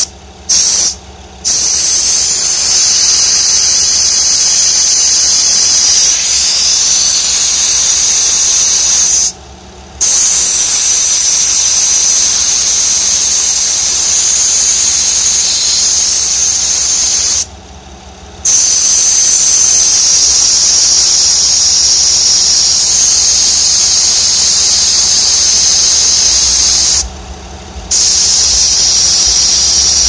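Refrigerant hissing steadily from a recharge can through its charging hose into the low-side service port of a 2007 Honda Odyssey's A/C system. The hiss stops for about a second four times, with the system's pressure still reading in the low zone: it is being charged because it isn't cooling enough.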